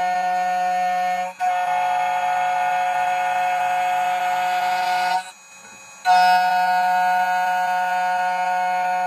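Tank 2 Pro key cutting machine's spindle motor running with a steady whine while the cutter trims a key blank to width. It drops out for a moment about a second in, stops for under a second around the five-second mark, then starts again.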